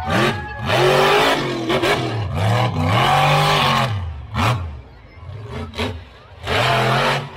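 Monster truck engine revving hard in repeated bursts, its pitch climbing and falling with each rev. It eases off to short blips about two-thirds of the way through, then revs up loudly again near the end.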